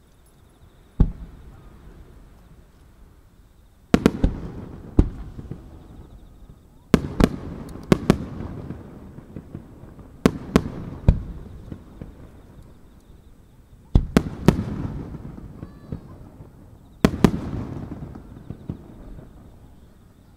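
Aerial firework shells bursting: sharp bangs in groups of one to three about every three seconds, the first about a second in, each followed by a low rumbling tail that fades away.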